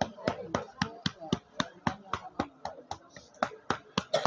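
A rapid, even series of sharp hand claps or slaps, about four a second, with faint voices between them.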